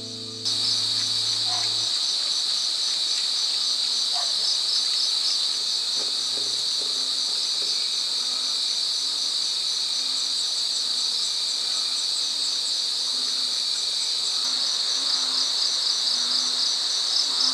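A dense chorus of night insects: a continuous high-pitched trilling with rapid pulsing chirps above it, steady throughout.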